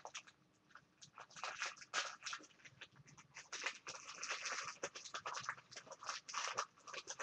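Craft materials being handled, a rapid irregular crinkling and rustling that starts about a second in.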